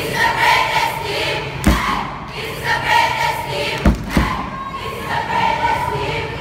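A large bench cheering squad singing a cheer together in unison, with two heavy thumps about two seconds apart.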